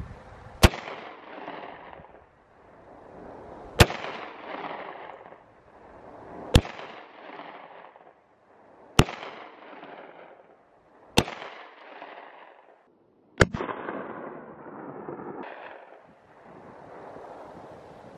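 Six shots from a long-slide Glock 40 pistol in 10mm Auto, fired two to three seconds apart. Each shot is followed by a long echo that dies away over a second or two.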